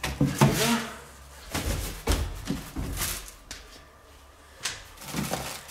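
Handling noise from unpacking a bicycle trailer: a wheel and parts knocking against a hard plastic crate, with rustling of packaging. Several short knocks come in the first half-second and again near the end, with a stretch of rustling and scraping in between.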